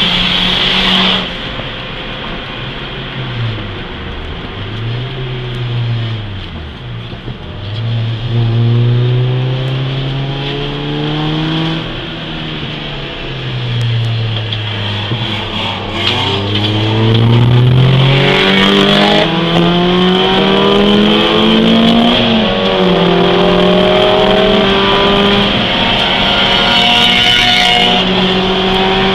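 Peugeot 206 S16's 2.0-litre 16-valve four-cylinder engine, heard from inside the cabin while driven hard on a track: the revs climb and fall several times in the first half as it accelerates, lifts off and changes gear. In the second half it holds at high revs, with one short drop about two-thirds through.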